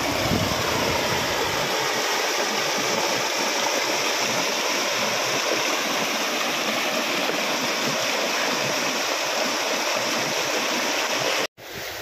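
Water rushing steadily over rocks in a small waterfall cascade. It breaks off for an instant near the end, then goes on quieter.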